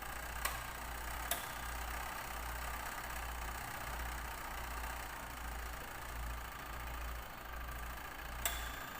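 Washing machine motor humming steadily, with three sharp clicks of the timer switch: about half a second in, just after a second, and near the end. The motor does not switch over to reverse, which the owner takes for a defective timer.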